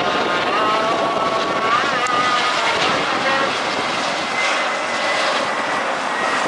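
Airbus A320 airliner's jet engines on landing approach: a steady roar with a whine of engine tones on top.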